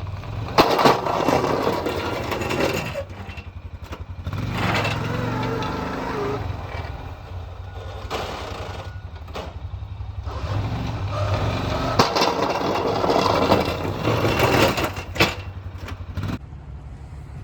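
A snowplow vehicle's engine running steadily, with three long, loud stretches of rushing, scraping noise over it.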